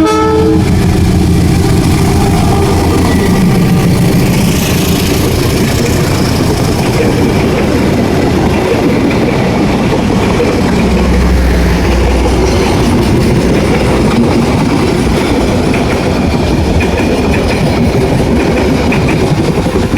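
A train passing over the level crossing: the loud, steady rumble of wheels on rails and railcars.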